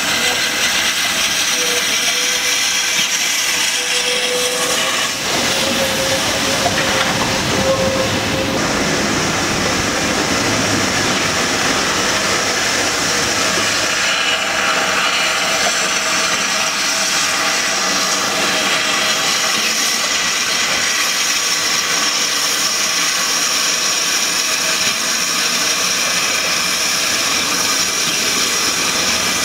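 USATC S160 2-8-0 steam locomotive No. 6046 blowing off steam as it runs slowly through the station: a continuous loud hiss of escaping steam, with no distinct exhaust beat.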